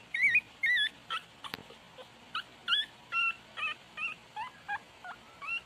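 A twenty-day-old Shih Tzu puppy whimpering: a rapid string of short, high-pitched, wavering squeaks, about two a second.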